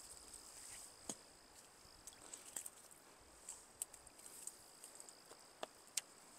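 Faint, steady high-pitched drone of insects, with a few sharp clicks scattered through, the loudest near the end.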